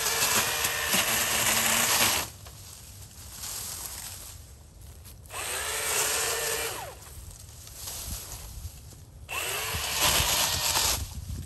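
Milwaukee M18 cordless electric pole saw run in three bursts of about two seconds, its motor and chain spinning up and winding down each time as it cuts into brush.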